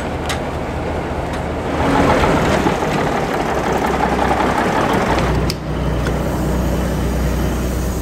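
Old red truck's engine running just after starting, puffing exhaust smoke. It grows louder for a few seconds in the middle, then settles to a steady low running.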